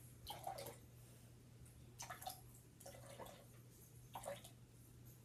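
A drink poured from a can into a cup in four short, faint pours.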